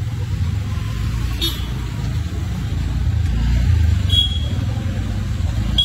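Steady low rumble of street traffic, swelling slightly about two-thirds of the way through, with two short clinks.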